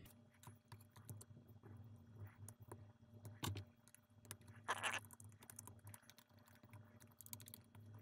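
Faint, irregular clicks and scrapes of a knife tip working at the terminal screws on the back of a plastic UK double wall socket, with a couple of short, louder rustles partway through.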